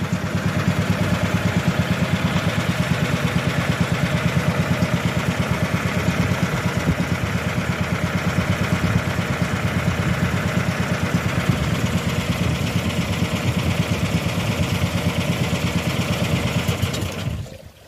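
Engine of a motorized outrigger boat (pumpboat) running steadily under way, with a fast, even chugging pulse; it fades out near the end.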